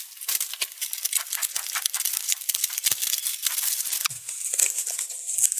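Plastic packaging crinkling and rustling as hands unwrap a parcel, with many quick crackles.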